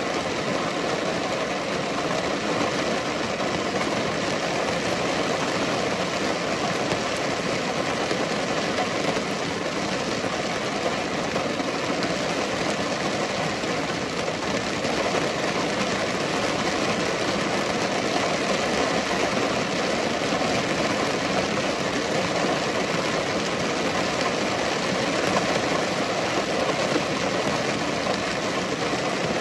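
Steady, gentle rain falling, an even wash of drops with no breaks or changes.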